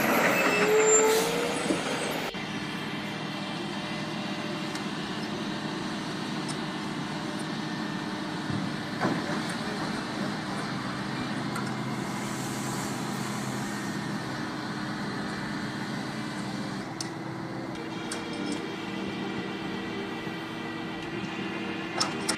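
A heavy machine's engine running steadily, with a louder stretch and a short squeal in the first two seconds.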